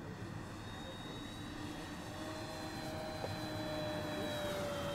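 3D-printed radio-controlled model airplane flying past: a steady propeller whine that grows louder toward the end and dips slightly in pitch as it passes.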